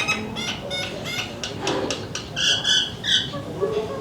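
Birds calling outdoors: a few short, high chirps, two of them clearer about two and a half and three seconds in, with a few light clicks in the first second or so.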